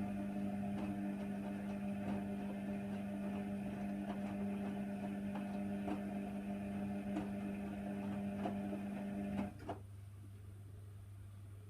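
Hoover Nextra HNWL 7146 washer dryer running with a steady mechanical hum and faint irregular ticks. The hum stops abruptly about nine and a half seconds in, followed by a click, leaving only a quieter low hum.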